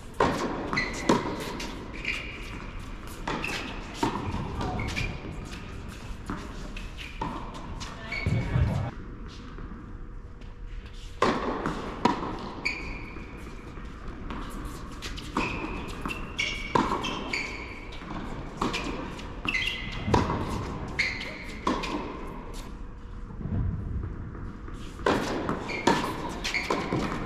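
Tennis balls struck by rackets and bouncing on an indoor hard court during doubles rallies: a string of sharp pops and thuds, echoing in a large hall.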